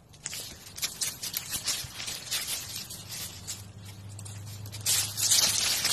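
Quick, dense crackling and rustling of dry leaves and palm fronds as a young alpaca nibbles and moves among them, busier near the end. A faint low hum runs underneath for a couple of seconds in the middle.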